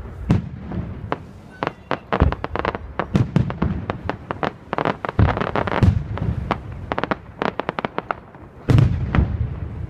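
Fireworks display: a rapid run of crackling pops and bangs with heavier booms mixed in, and a loud cluster of bursts near the end.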